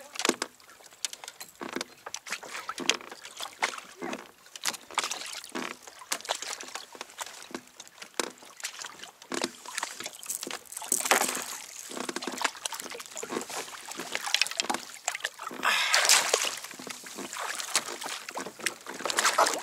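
Water sloshing and splashing around a kayak, with many short knocks and clicks throughout and two longer splashes, about halfway through and near the end.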